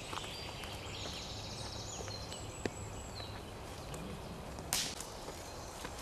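Footsteps in forest leaf litter with a sharp snap of dry wood about four to five seconds in, over a steady low wind rumble on the microphone. A small bird sings a short high trill and a few chirps about a second in.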